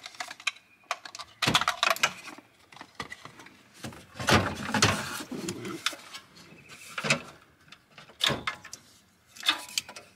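Plastic and metal clicks, knocks and rattles as a GM truck's radio and climate control head are worked loose from the dash, with a longer scraping rustle about four seconds in.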